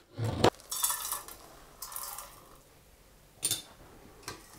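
Chef's knife chopping couverture chocolate on a plastic cutting board, a few quick strokes at the start, followed by scraping and rustling. Two light clinks come later, as the chocolate goes into a metal bowl.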